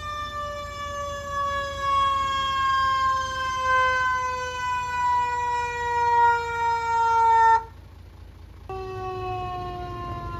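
Fire truck siren wailing: after a quick rise its pitch falls slowly and steadily for about seven seconds, then cuts off suddenly. After about a second's gap it starts again and falls once more.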